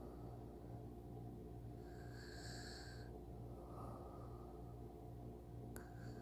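Soft snoring and slow breathing of a sleeping person close to the microphone, with one breath about two seconds in and another about four seconds in, over a steady low hum. A single click comes near the end.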